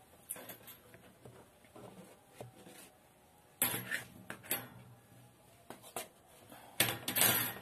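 Narrow strips of thin steel bandsaw blade clattering as they are picked up and handled, in two short bursts: one about three and a half seconds in and one near the end, with light scattered clicks between.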